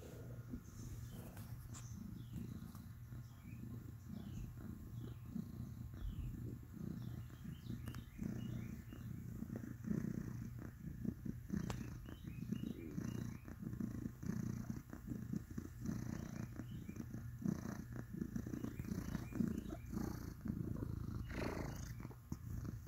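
A Norwegian Forest Cat purring close to the microphone, a continuous low rumble that swells and eases with its breathing.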